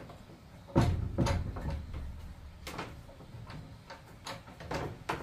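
A heavy thump about a second in, followed by irregular knocks and clicks.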